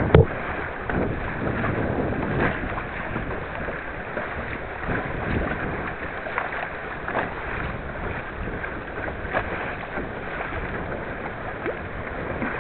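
Wind buffeting the microphone over steady splashing of choppy water around a small boat, with a sharp knock just at the start and a few lighter slaps of water.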